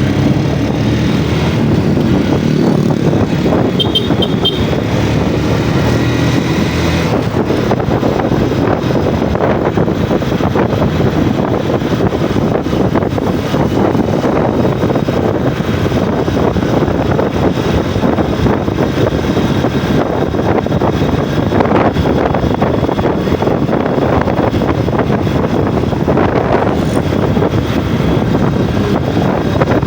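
Yamaha Jupiter MX underbone motorcycle engine running on the move, with wind noise on the microphone. The engine's pitch stands out for the first several seconds, then is mostly buried under a steady rushing noise.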